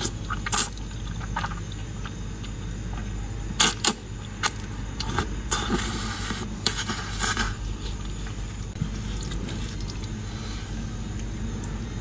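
Noodles being slurped and chewed close to a clip-on microphone: irregular wet mouth clicks and smacks, with a longer slurp around the middle, over a steady low hum.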